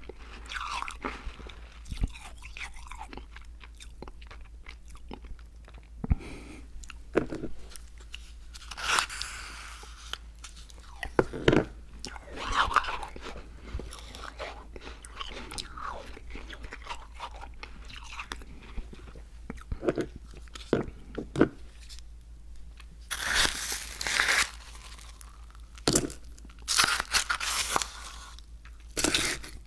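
Close-miked chewing and crunching of icy ICEE slush, in irregular bites and crunches with short pauses between. The crunching is busiest near the end.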